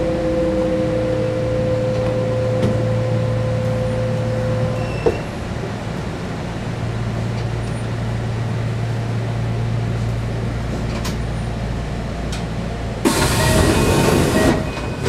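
Electric commuter train pulling into a station and stopping: a steady motor whine and hum that cut off with a click about five seconds in, then a steady low hum while it stands. About thirteen seconds in comes a loud burst of compressed-air hiss lasting about a second and a half.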